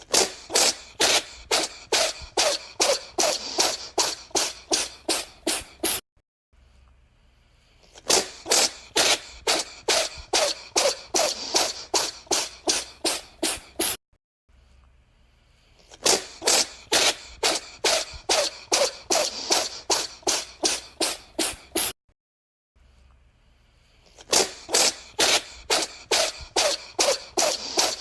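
A cat with a runny nose sneezing in a rapid fit, about three to four sharp sneezes a second that grow weaker toward the end of each run. The same six-second run cuts off and starts again, four times over.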